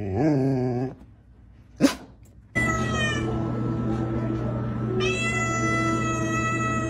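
A tabby cat yowling: one long, unbroken, drawn-out cry that starts about two and a half seconds in and grows brighter about halfway through. Before it, a wavering pitched voice sound stops about a second in, and a single sharp click falls near the two-second mark.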